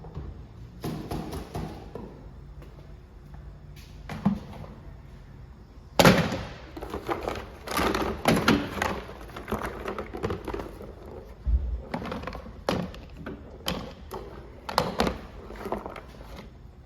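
Irregular knocks, taps and clatter from hand work on an Echo string trimmer, with tools and parts being handled. A few scattered knocks come first, then from about six seconds a busier run of hits, the loudest at its start.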